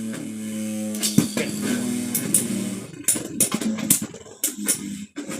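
Two Beyblade Burst tops, Sterling Wolf and Lance Knight, spinning in a plastic stadium: a steady humming whir, a sharp clack about a second in, then a rapid run of clacks as they collide from about three seconds in.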